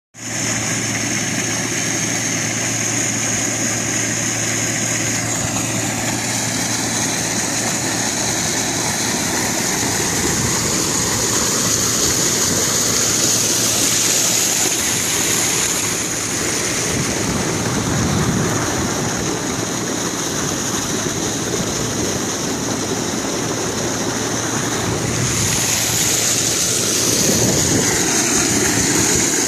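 Sand-suction dredge machine running steadily: engine and pump noise mixed with a constant water-like rush and a steady high whine.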